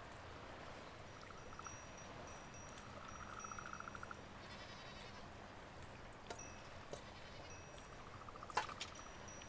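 Faint countryside ambience: insects chirping in quick repeated bursts and a buzzing trill that comes and goes, with a few light clicks or jingles about six, seven and eight and a half seconds in.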